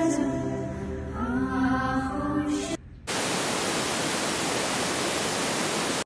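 Music with a singing voice sliding between held notes, cutting off just under three seconds in. After a brief gap a steady, even static-like hiss follows and stops abruptly.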